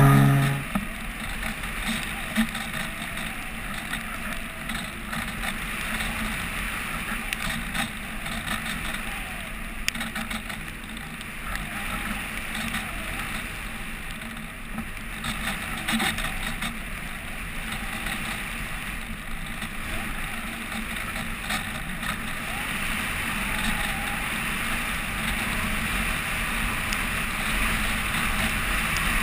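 Steady wind rush over the GoPro housing on an RC glider gliding with its motor off, after the motor's whine cuts out right at the start. A few light ticks come through the noise.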